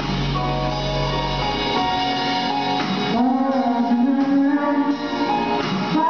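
Live band music with a male singer. The bass end drops out about two seconds in, and from about three seconds the man's voice holds long, sung notes over the instruments.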